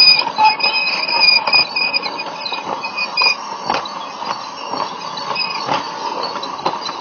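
Toy steam train running along its track, with a steady running noise and sharp clicks roughly once a second as the wheels pass over the track joints. A high steady tone sounds through the first three seconds or so.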